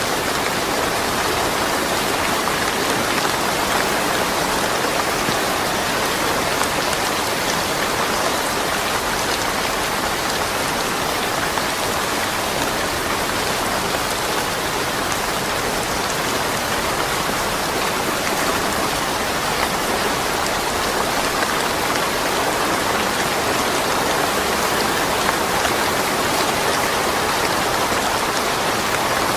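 Steady rain falling and pattering on surfaces, an even hiss of drops with no thunder.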